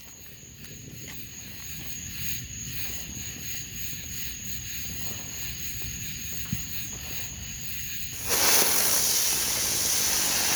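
Small ground-spinner firework hissing. A faint hiss runs for about eight seconds, then a sudden, loud, steady hiss of spraying sparks sets in. The firework hisses without spinning.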